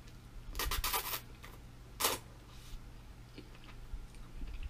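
Ramen noodles slurped into the mouth in a cluster of short noisy bursts about half a second to a second in, then once more about two seconds in, followed by fainter mouth sounds of eating.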